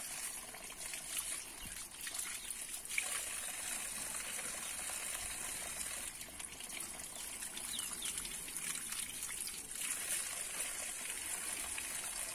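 Water trickling and dripping into a bucket as cleaned fish pieces are lifted out of it and laid in a pot, with a steady high hiss behind.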